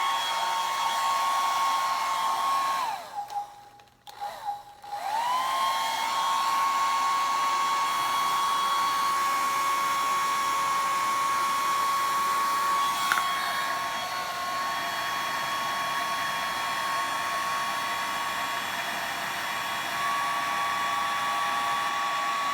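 Handheld blow dryer running with a steady motor whine and rush of air. It is switched off about three seconds in and winds down, then is switched on again a second or two later and spins back up to speed.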